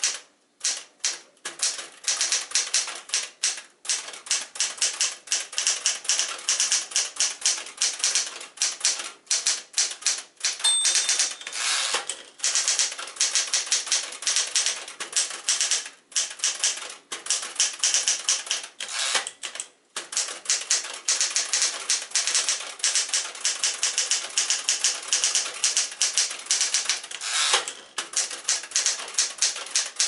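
A 1975 Smith-Corona Galaxie Twelve manual portable typewriter being typed on quickly: rapid clacking key and typebar strikes in fast runs, broken by short pauses.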